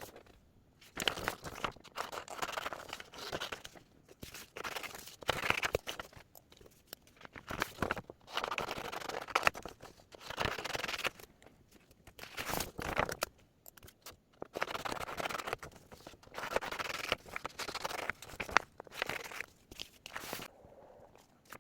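Irregular rustling and crinkling with small clicks and knocks, like paper or packaging being handled close by, coming in bursts with short pauses between.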